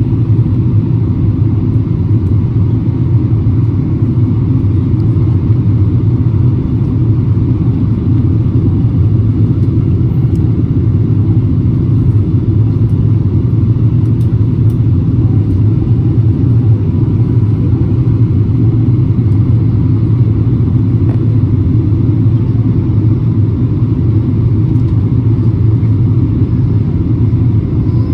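Airliner cabin noise in flight: a steady, loud low rumble of engines and airflow heard from a window seat, with a faint steady high whine above it.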